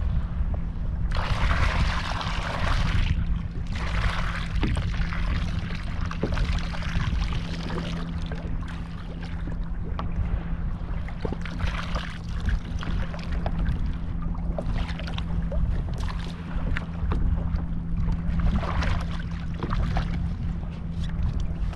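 Wind buffeting the microphone in a steady low rumble, with water lapping and splashing against a kayak hull in short washes of hiss and a few small knocks.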